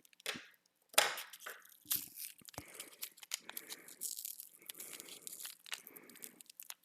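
Plastic and paper packaging being torn and crinkled by hand as a coin is unwrapped, with irregular crackling and a few sharp snaps, the loudest about a second in.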